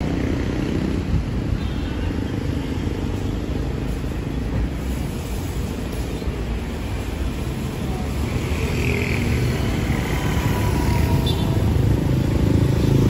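Street traffic: a steady rumble of passing cars and motorcycles, growing louder near the end.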